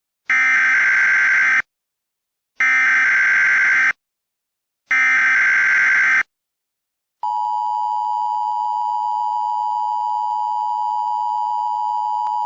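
Emergency Alert System alert signal: three harsh digital header data bursts about a second apart, then the steady two-tone EAS attention signal, starting about seven seconds in.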